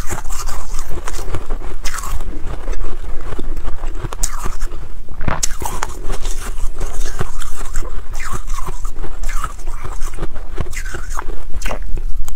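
Refrozen freezer frost being bitten and chewed, a dense, continuous run of crisp crunches and crackles.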